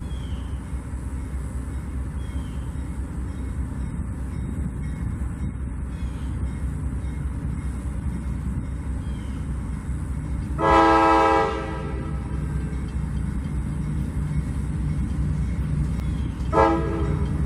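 Diesel freight locomotive horn: one blast of about a second roughly ten seconds in and a shorter blast near the end, over the steady low rumble of the passing train.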